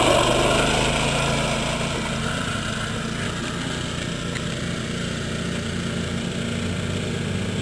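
Small engine of a Speedex garden tractor running steadily as the tractor drives across the lawn, a little louder for the first second.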